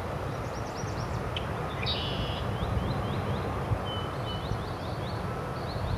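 Airbus A321 jet airliner rolling along the runway after touchdown, a steady rumble of engine and rolling noise. Over it, a bird chirps close by in quick runs of short chirps.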